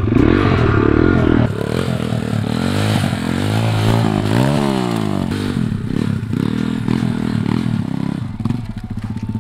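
Three-wheeled pitbike's single-cylinder engine revving up and down while ridden, its pitch rising and falling several times, with a quick rise and drop about four and a half seconds in.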